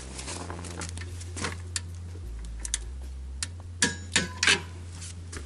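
Hand tools clicking and clinking on metal as the scooter's muffler mounting bolts are torqued with a wrench. Scattered sharp clicks, then three louder ringing metallic clicks close together about four seconds in.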